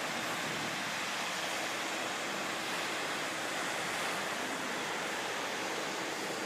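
Steady wash of ocean surf on a beach, an even hiss that doesn't change.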